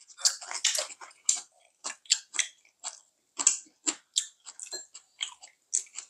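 Close-miked chewing of crunchy kimchi: an irregular run of short, sharp crunches and wet mouth sounds, about two or three a second.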